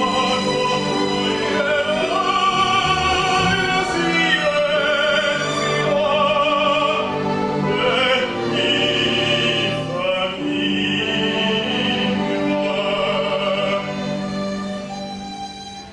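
Operatic solo voice singing sustained notes with a wide vibrato over orchestral accompaniment, fading down near the end.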